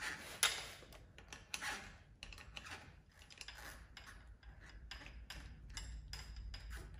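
Wrenches clinking on a motorcycle turn-signal stalk's mounting nut as it is worked loose: irregular light metallic clicks and taps, the sharpest about half a second in.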